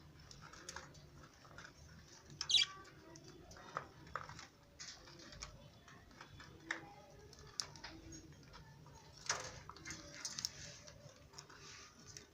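Fischer's lovebirds making short scattered chirps and squeaks, with one sharp, louder call about two and a half seconds in and light scratchy clicks in between.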